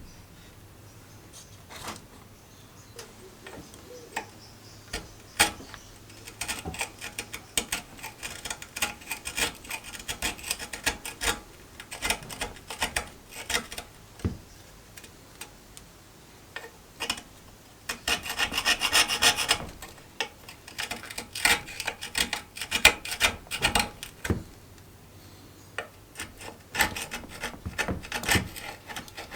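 Scraping and rubbing on a rusty cast iron stove, a run of short rasping strokes mixed with scattered clicks and knocks, densest and loudest about eighteen to twenty seconds in.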